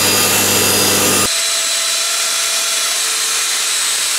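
Table saw blade ripping a plywood blank, steady and loud with a low motor hum under the cutting noise. About a second in the sound changes abruptly: the hum drops away, leaving a steady high hiss with a faint whine.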